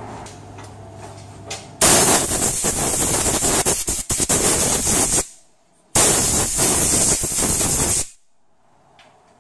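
Compressed-air blowgun blowing out a sensor on an automatic transmission's exposed valve body: two loud hissing blasts, the first about three seconds long, the second about two, each cut off sharply.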